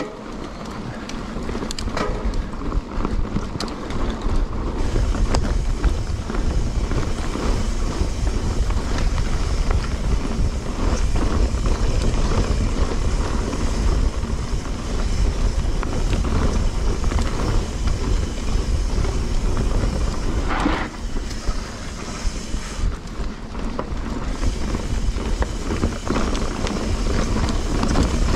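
Mountain bike ridden fast down a dirt trail, heard from a GoPro on the bike or rider: a continuous rumble and rattle of tyres, chain and frame over rough ground, with wind buffeting the microphone.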